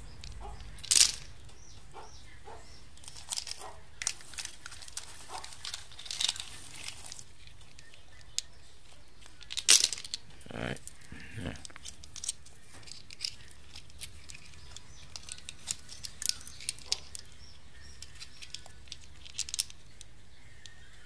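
Dry leaf litter crinkling and crackling as a hand rakes through it and picks up snails, in scattered short bursts. The two loudest crackles come about a second in and just before the middle.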